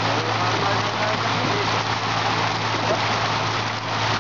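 Milkfish thrashing and splashing in a crowded harvest net, a dense rain-like patter of water, over a steady low hum.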